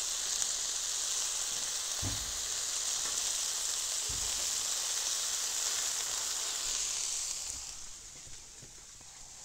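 Food frying on a hot Blackstone flat-top griddle: a steady sizzling hiss that drops away near the end, with a couple of soft thuds.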